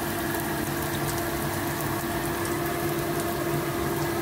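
Chopped red chillies, shallots and garlic sizzling in hot oil in a steel wok: a steady hiss with faint scattered crackles, over a steady low hum.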